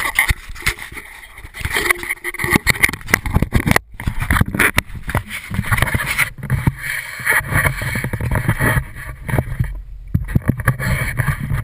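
Close knocking, clicking and rubbing from a GoPro in its waterproof housing being handled and turned about, with brief dropouts in the sound.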